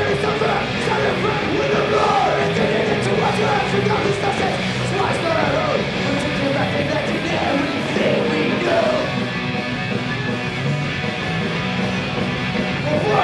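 Punk rock band playing live, loud and continuous.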